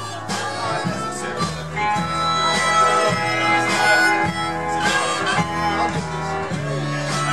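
Live blues-roots band playing, with a harmonica cupped to a microphone taking the lead over electric guitar, a bass line and drums.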